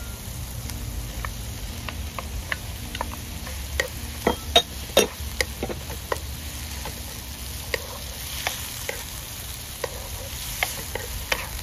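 Wooden spoon knocking and scraping against a nonstick pan while stirring sliced onions and chopped tomatoes, with a light sizzle. The loudest knocks come about four to five seconds in. A low steady rumble runs underneath.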